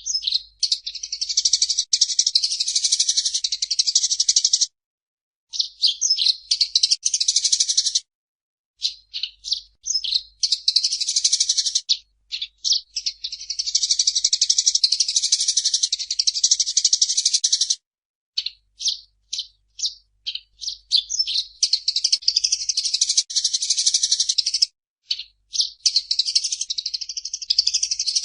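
Eurasian tree sparrow (burung gereja) chattering in fast, dense runs of high chirps several seconds long. Each run starts with a few separate chirps, and the runs are broken by brief silent gaps.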